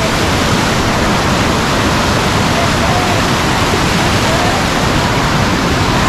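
Loud, steady rush of a powerful waterfall running fast and swollen with monsoon rain.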